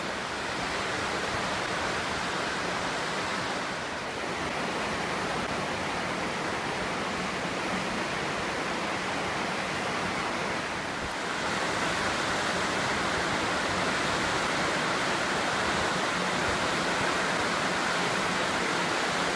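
Rain-swollen river in flood rushing through rapids over rocks: a steady rush of whitewater, a little quieter from about four seconds in and louder again from about eleven seconds in.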